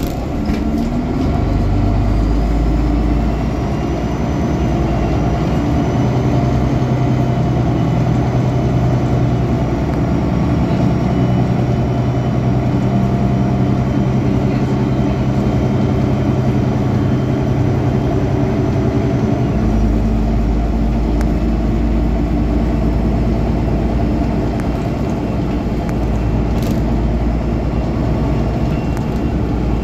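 City bus diesel engine heard from the rear seats right beside it, pulling away and running under load, with a faint high whine above the engine note. About twenty seconds in, the engine note changes to a deep low hum.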